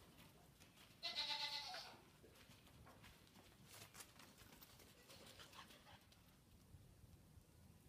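A Nigerian Dwarf goat bleats once, about a second in: a single wavering call lasting under a second.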